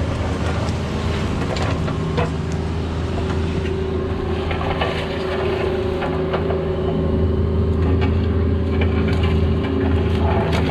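Cat 304 mini excavator's diesel engine running steadily while digging, with scattered short knocks and clicks.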